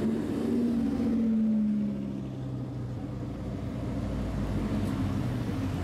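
Audi R8's engine running at low speed as the car passes close by, its pitch falling slowly as it moves away. Then a second car's engine runs steadily and lower as it creeps up.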